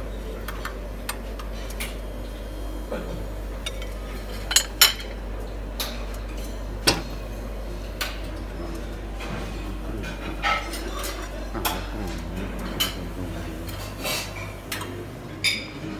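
Metal serving tongs and utensils clinking against chafing dishes, trays and plates at a buffet, in scattered sharp clatters. The loudest is a pair of strikes about four and a half seconds in, over a steady low hum.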